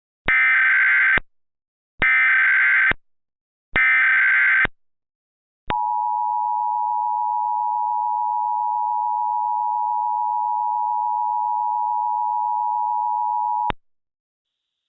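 Emergency Alert System test signal: three one-second bursts of warbling digital SAME header data, then after a short gap the EAS two-tone attention signal (853 and 960 Hz), held steadily for about eight seconds before cutting off.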